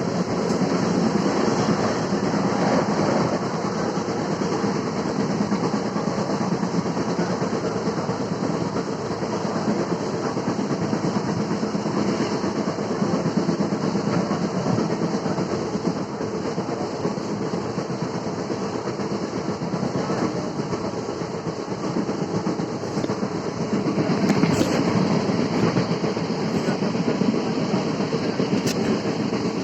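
ICF passenger coach running on the track at about 110 km/h: steady wheel-on-rail running noise throughout, louder for a moment about 24 seconds in, with a sharp click shortly before the end.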